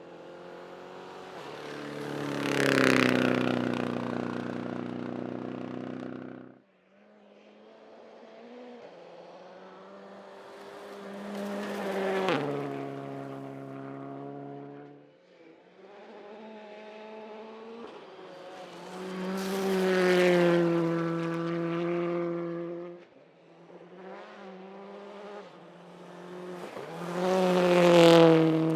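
Rally cars passing one after another at speed, four in turn; each engine note swells as the car approaches and drops in pitch as it goes by. Three of the passes cut off abruptly.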